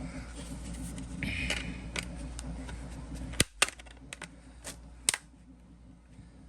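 Handling of hard plastic parts and a screwdriver: a few sharp clicks and taps, over a steady low hum that cuts out about three and a half seconds in.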